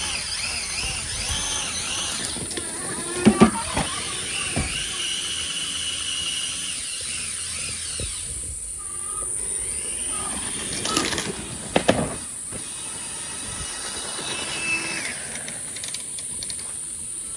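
Electric bike motor whining, its pitch rising and falling as it rides, with a few sharp knocks about three seconds in and again around eleven to twelve seconds in.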